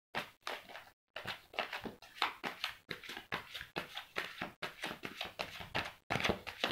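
Tarot cards being shuffled by hand: a quick, irregular run of short papery slaps and swishes, several a second.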